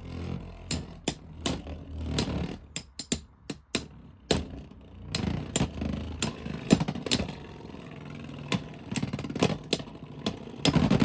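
Two Beyblade X spinning tops, Talon Ptera 3-80B and Night Shield, whirring in a plastic stadium. Repeated sharp clacks sound as they hit each other, with a louder burst of rattling near the end.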